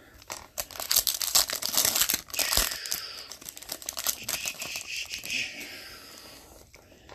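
Foil wrapper of an Upper Deck Series 2 hockey card pack being torn open and crinkled, a dense crackling that runs for about five seconds and then fades.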